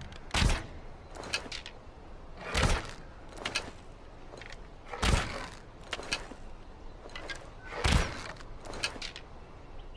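Longbow being shot: four loud thumps of the bowstring at release, every two to three seconds, each followed about a second later by a fainter sharp knock.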